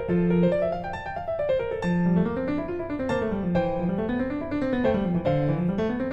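Background piano music, with quick rippling runs of notes rising and falling over a steady bass line.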